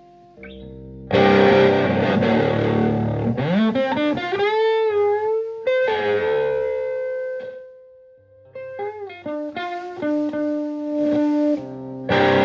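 Electric guitar, a Stratocaster, played through a Höfner germanium preamp pedal into a Fender Twin Reverb-style amp. A loud strummed chord comes about a second in, then string bends with vibrato, then picked single notes, and another chord near the end.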